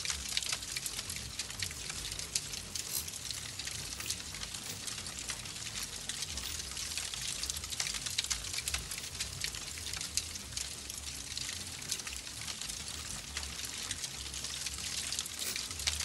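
Steady hiss of water with many small crackles throughout, over an uneven low rumble.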